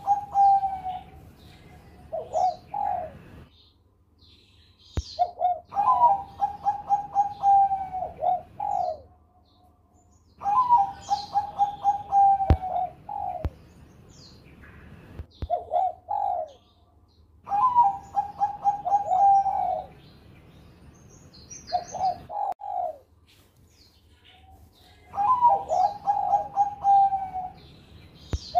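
Zebra dove (Bangkok perkutut) cooing its song four times, about every seven seconds. Each phrase is a quick stuttering run of coos followed by two or three short separate notes. A few sharp clicks fall between phrases.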